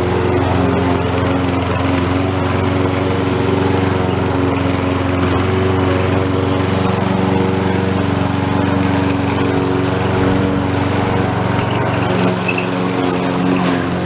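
Lawn mower engine running steadily at mowing speed.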